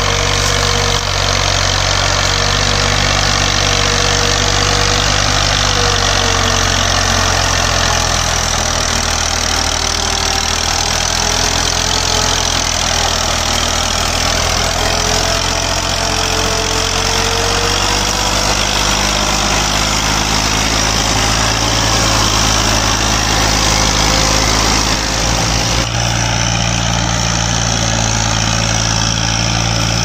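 Massey Ferguson 240 tractor's three-cylinder diesel engine running steadily while it pulls a heavily loaded sugarcane trolley across a field. The engine note shifts a little past halfway and again near the end.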